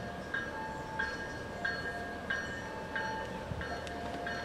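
An approaching commuter train's bell ringing in an even rhythm, about three strikes every two seconds, each strike ringing on. A low rumble from the approaching train lies underneath.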